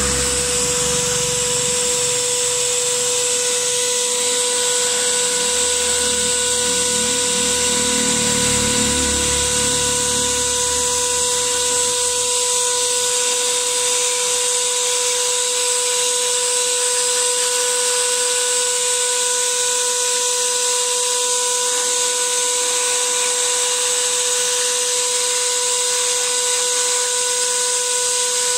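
Small electric cleaning tool's motor running steadily: a constant whine with a rush of air from its nozzle. A low rumble comes and goes over the first dozen seconds or so.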